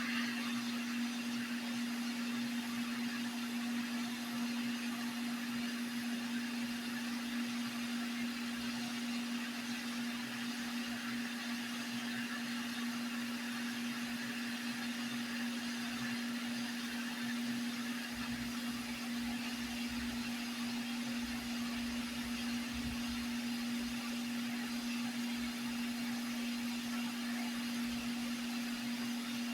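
Hot-air rework station blowing steadily: a constant whir with a steady hum tone over an even hiss.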